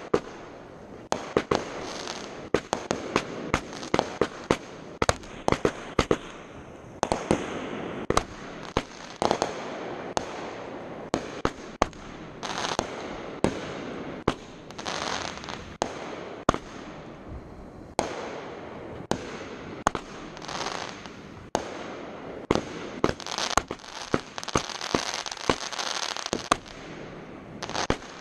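Fireworks display: a dense run of sharp bangs, several a second, over steady crackling.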